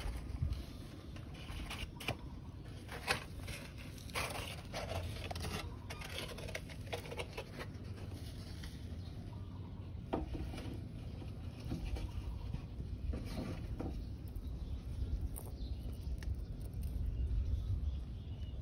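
Scattered soft scrapes and crackles of loose soil as a red-footed tortoise shifts its hind legs in its egg-laying nest hole, over a steady low rumble.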